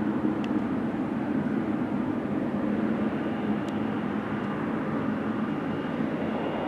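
The GE90 jet engines of a Boeing 777F freighter run at low power as the aircraft rolls slowly on the runway after landing. A steady distant rumble, with a faint high whine coming in about halfway through.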